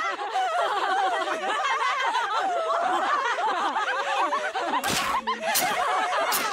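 Several women laughing together in a loud, overlapping cackle. From about five seconds in, a few sudden smacking hits cut in over the laughter.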